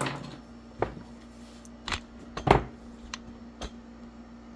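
A handful of light clicks and knocks, about six in all, the loudest about two and a half seconds in, as small parts of an HO scale model locomotive are handled and set down on a workbench.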